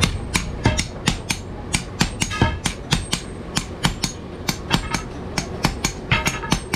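Hand hammers striking steel on an anvil in a steady run of sharp blows, about three to four a second, a few of them ringing briefly.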